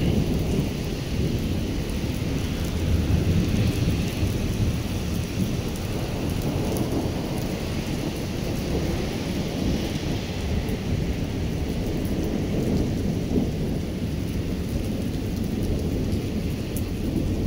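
Heavy rain pouring down steadily on wet pavement, over a continuous low rumble.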